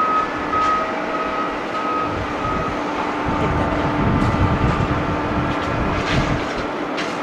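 Boeing 777-200ER airliner's jet engines droning steadily on final approach just before touchdown, with a low rumble that swells about halfway through and then eases.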